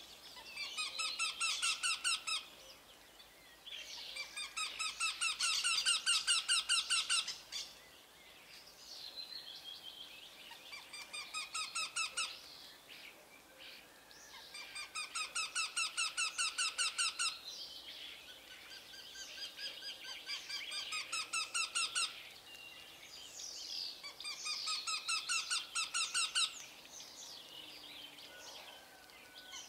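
A bird calling in rapid trilled series of high, squeaky notes, about six series of one to three seconds each with short pauses between.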